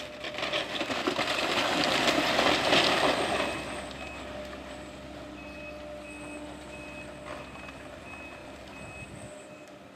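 Building wall and roof crashing down under a long-reach demolition excavator: a dense clatter of falling debris, loudest about two to three seconds in and dying away by about four seconds. Then a backup alarm beeps about twice a second over the steady running of heavy machinery.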